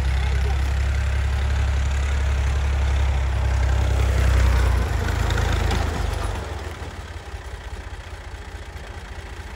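An engine running steadily with a deep drone. About five to six seconds in it drops away to a quieter, pulsing engine sound.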